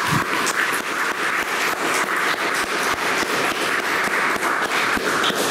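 Audience applauding steadily at the end of a lecture.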